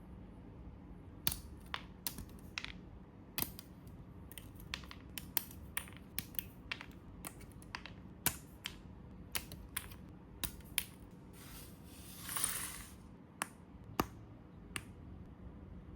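Small plastic model-kit parts being handled and snapped together: many sharp, irregular plastic clicks, with one brief rustle about three-quarters of the way through.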